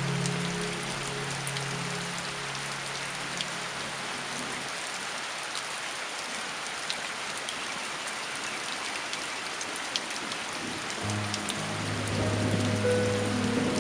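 Steady rain falling on a surface, an even hiss with scattered sharper drop ticks. Soft music with long held low notes fades out in the first few seconds and comes back in about eleven seconds in, louder near the end.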